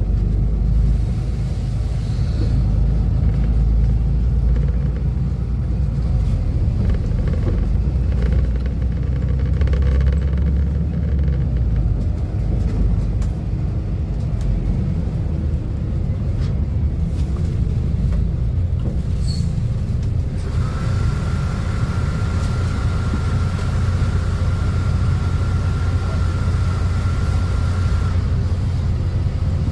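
Volvo B250RLE bus diesel engine running with a steady low rumble. About two-thirds of the way in, a steady high tone sounds for about seven seconds and then stops.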